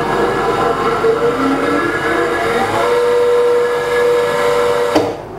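Fused-clapton coil-winding machine's motor running in reverse to loosen the wound wire before it is taken off: a machine whine of several shifting tones that settles into one steady tone, then stops abruptly near the end.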